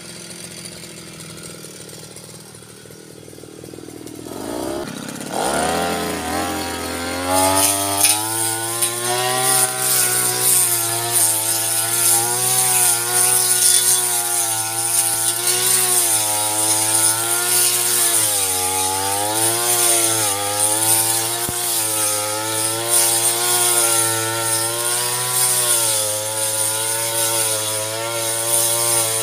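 Brush cutter engine idling, then revved up about five seconds in and held at high speed, its pitch dipping and rising as it cuts weeds, with a high hiss from the spinning cutter.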